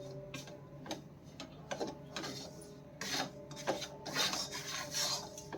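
Besan (gram flour) roasting in ghee, stirred and scraped around the pan for halwa, in irregular rasping strokes about one or two a second.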